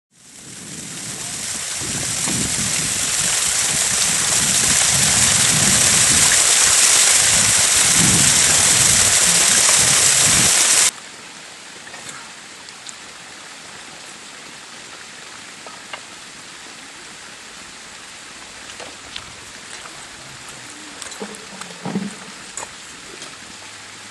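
Loud rushing water noise, like heavy rain or a torrent, swells up over several seconds and cuts off suddenly about eleven seconds in. Then a quieter steady flow of shallow muddy stream water, with scattered small knocks of bricks and stones being set in it near the end.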